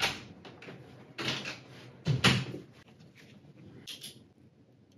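An interior room door being handled: a few sudden knocks, the loudest a little past two seconds in as it shuts, then a short rustle near the end.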